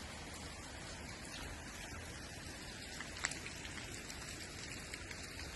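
Steady rushing of water from small rapids and a little waterfall, an even hiss, with one brief tick about three seconds in.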